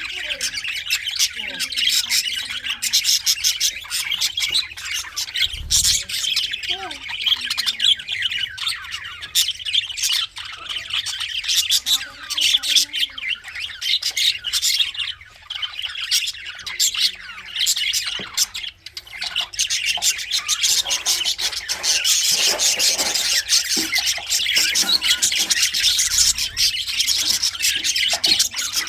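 Male budgerigars chirping and warbling continuously, a dense run of rapid high chirps and clicks with brief lulls.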